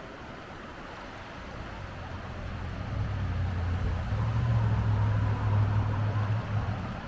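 A river rushing steadily, with a low engine hum that builds from about three seconds in, holds, and fades near the end, like a vehicle passing.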